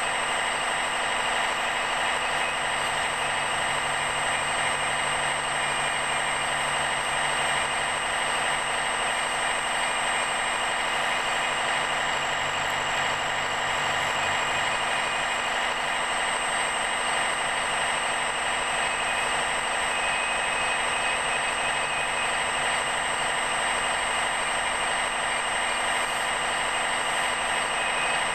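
Radio-controlled scale hydraulic excavator running steadily with a constant whine as it digs, swings and moves its arm.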